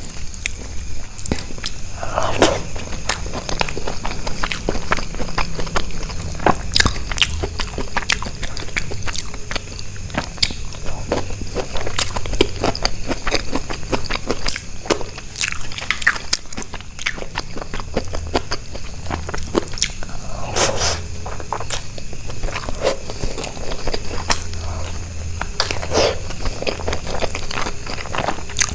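Close-miked eating: continual chewing and biting with many small crunchy clicks, and a few louder wet mouthfuls about two seconds in, near 21 seconds and near 26 seconds.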